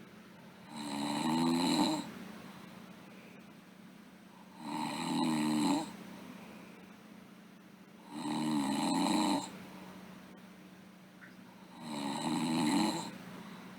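A sleeping girl snoring. Four snores come about every three and a half to four seconds, each lasting just over a second, with quieter breathing gaps between them.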